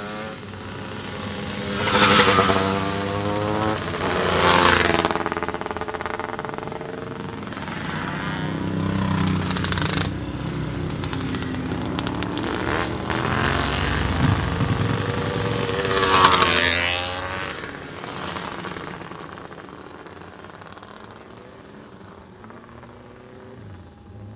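Classic racing motorcycles climbing the hill one after another at high revs. Three loud pass-bys come about two, five and sixteen seconds in, each engine note dropping in pitch as the bike goes past. The sound fades to a more distant engine drone in the last few seconds.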